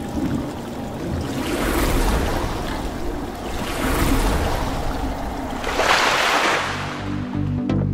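Sound-effect water splashing and rushing, swelling and easing about every two seconds over a low rumble. Near the end a low electronic music beat comes in.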